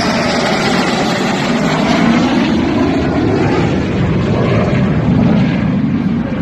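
Dassault Rafale fighter jet's twin engines running loud and steady as it comes in on its landing approach, with a slowly falling pitch sweep as it passes.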